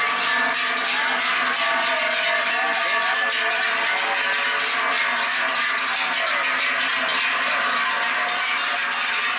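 Many large cowbells worn by a herd of cows, clanging and ringing together without pause as the cows walk past.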